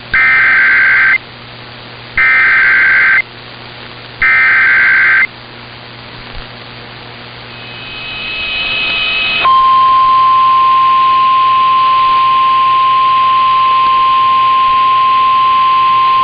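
Emergency Alert System SAME header: three loud one-second bursts of screeching digital data tones, about a second apart. After a rising hiss, the steady single-pitch NOAA Weather Radio 1050 Hz warning alarm tone starts about nine and a half seconds in and holds, heralding a tornado warning.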